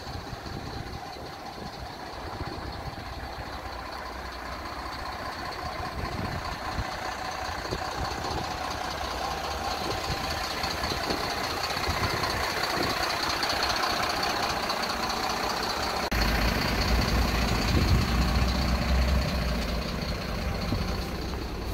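Mercedes refuse truck with a Faun Variopress body running at idle, a steady mechanical hum with a high whine over it. About two-thirds of the way in the sound turns deeper and louder, heard from inside the cab, and a short thump comes at the very end.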